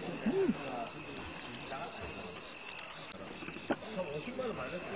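A chorus of crickets trilling steadily and without a break, high-pitched.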